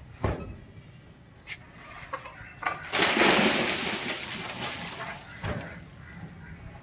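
Sacks of shell lime unloaded from a truck and set down on a stack, landing with dull thumps; about three seconds in comes the loudest sound, a rush of noise that fades over about a second.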